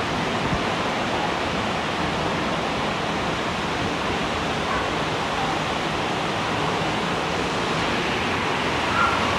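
Steady rush of falling water from a large artificial waterfall.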